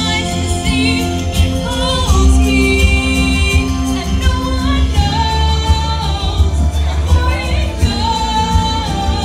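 A woman singing into a microphone over amplified backing music, with a wavering vibrato on held high notes.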